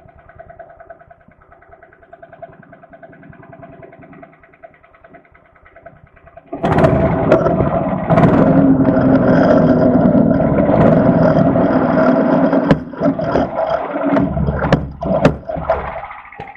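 Small engine of a cheval de fer tracked forestry skidder idling with an even rapid beat, then revving up about six seconds in and running hard under load. Clunks and knocks sound over it near the end, before it drops back.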